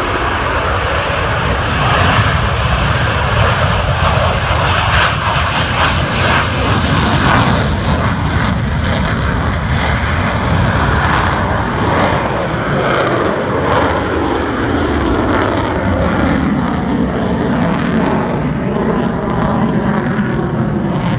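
F-22 Raptor's twin Pratt & Whitney F119 afterburning turbofan jet engines at full power on takeoff. It is a loud, continuous jet noise with a rough crackle through the middle, and the pitch shifts near the end as the jet passes and moves away.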